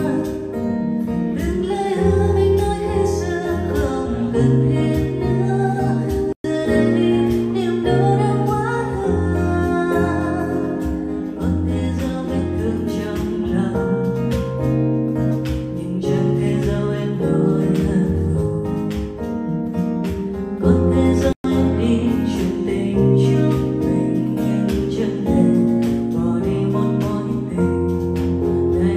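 A woman singing a Vietnamese pop song live into a handheld microphone, with guitar-like instrumental accompaniment. The sound cuts out for an instant twice.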